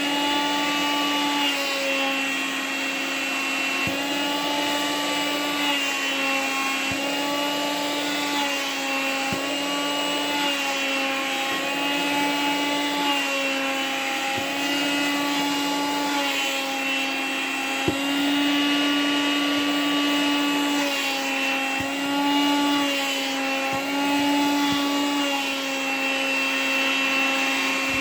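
Vacuum cleaner running steadily with a high whine, working over a nylon windbreaker; its pitch dips and recovers every second or two as the nozzle draws against the fabric. A few faint clicks.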